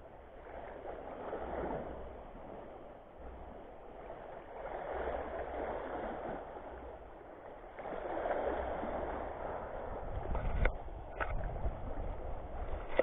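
Small waves washing over shallow rocks, rising and falling in three swells, with wind rumbling on the microphone. A few sharp clicks come near the end.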